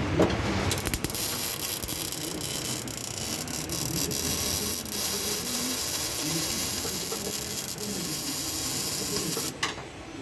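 A CO2 (MIG) welder laying a weld on a car's steel chassis rail: a steady crackling hiss with scattered pops. It starts just under a second in and cuts off suddenly near the end.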